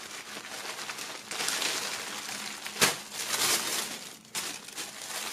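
Thin polyethylene bag crinkling and rustling as a folded jersey is pulled out of it, with one sharp crackle of the plastic about three seconds in.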